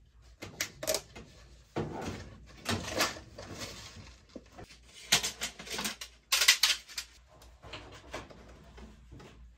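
Irregular clicks, clanks and rustles of tools and metal parts being handled during hands-on work at an oil-fired furnace, with the loudest clatters about five and six and a half seconds in.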